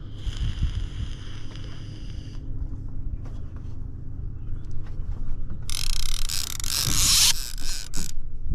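Boat motor running steadily while trolling, with a high whine for the first couple of seconds and a loud hissing rush about six seconds in.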